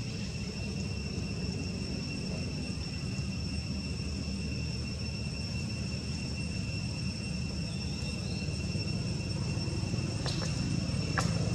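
Outdoor ambience: a steady high-pitched insect drone over a constant low rumble, with two brief clicks near the end.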